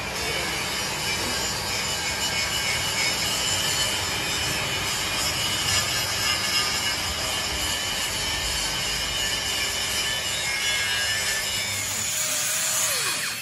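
Steady rasping, grinding noise of workshop machinery, without a break, with a few faint high whining tones in it.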